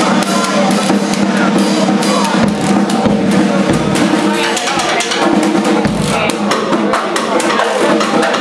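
Live blues band playing: electric guitar and bass guitar over a steady drum-kit beat, loud and continuous.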